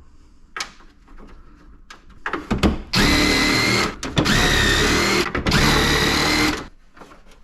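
Power drill run in three bursts of about a second each, a steady whine, after a few light handling clicks; the wrong bit is fitted for the job.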